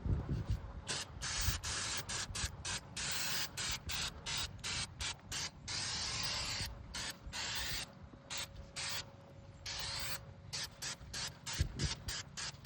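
Aerosol brake cleaner hissing out in many short bursts and a few longer ones, sprayed onto the front brakes to wash off the brake dust.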